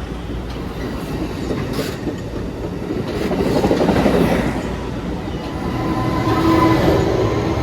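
Amtrak Pacific Surfliner passenger train passing, a rushing rumble of wheels on rail with occasional clacks, swelling about four seconds in and again near the end.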